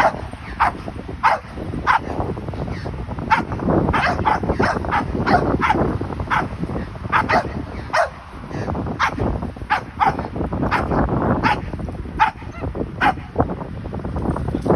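Puppies yapping: short, sharp barks over and over, roughly one to two a second.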